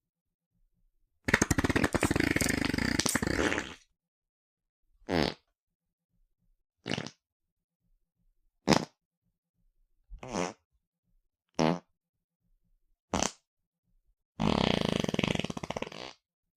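A run of fart sound effects separated by silence: one long fart starting about a second in, six short farts about one and a half seconds apart, then another long fart near the end.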